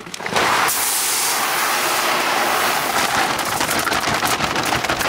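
Soybean seed pouring from a paper bag into the seed box of an International 620 grain drill: a steady, dense rush of many small beans hitting the box and the growing pile, starting about half a second in.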